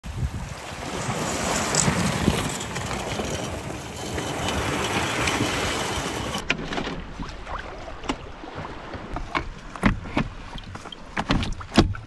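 Small waves washing over a pebble beach, with wind on the microphone, for about the first six seconds. Then the wash cuts off abruptly to quieter water with scattered knocks and clunks from a skin-on-frame canoe and its gear being pushed off and handled, the loudest knock near the end.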